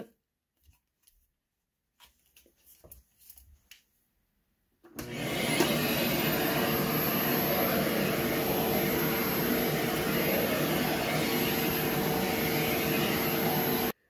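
Aspiron CA006 canister vacuum cleaner switched on about five seconds in after a few faint handling clicks. Its high motor whine rises as it spins up, then it runs steadily with the upholstery tool on stair carpet.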